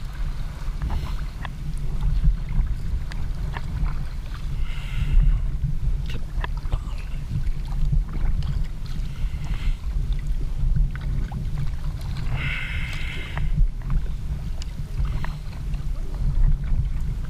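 Sea kayak paddling: a splash from the paddle blade every three to four seconds, with small clicks of water against the hull. Underneath is a steady low rumble of wind and water on the action camera's microphone.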